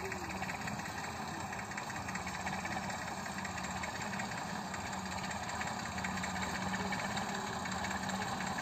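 Massey Ferguson 35 tractor engine running steadily under load as it pulls a seed drill across a tilled field.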